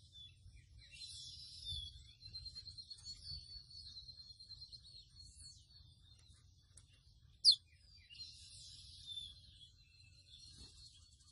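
A mochuelo ('pico de plata azul' seedeater) singing its varied song: repeated high buzzy phrases, runs of quick chattering notes and short whistled sweeps, with one sharp, loud falling whistle about seven seconds in. A faint low rumble runs underneath.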